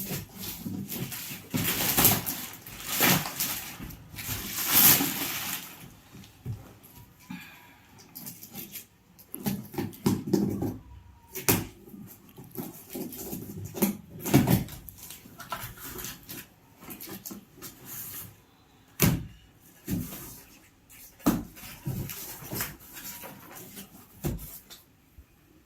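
Irregular rustling and handling noises with scattered knocks and clicks, typical of packaging being pulled off an oil-filled radiator heater; the rustling is loudest in the first five seconds.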